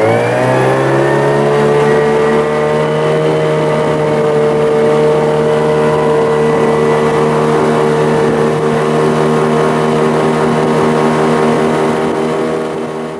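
Small boat's outboard motor running under way, its pitch finishing a rise in the first moment as the throttle opens, then holding steady, fading near the end.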